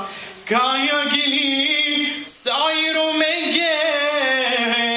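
A man singing a slow song in Romani, holding long wavering notes. After a short pause near the start, two long sung phrases follow, with a brief breath between them a little past the middle.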